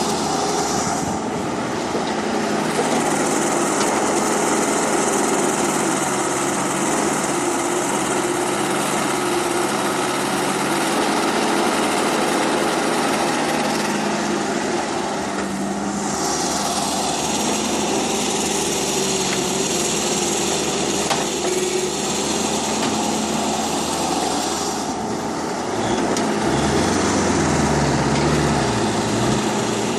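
Small electric motors and plastic gearboxes of remote-control toy construction vehicles running continuously, with a high whine that cuts out and comes back a few times as the machines start and stop moving.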